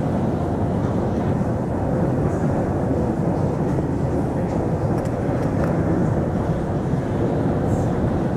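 Steady low rumbling background noise at an even level, with a few faint clicks.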